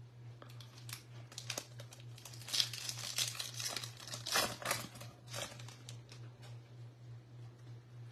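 Foil wrapper of a 2024 Bowman Baseball hobby pack crinkling and tearing as it is ripped open by hand. The crackling is loudest in the middle, then fades to lighter handling near the end.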